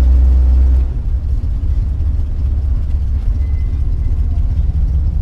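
A 1975 GMC motorhome driving, heard from inside the cab: a steady low rumble of its Oldsmobile 455 V8 and the road. The rumble is heavier for about the first second, then eases to a lower steady level.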